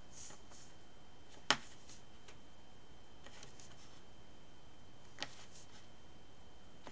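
Metal sculpting tool working the edge of a polymer clay disc on a jar lid: faint light scraping and ticks, with one sharp click about a second and a half in and a smaller one about five seconds in.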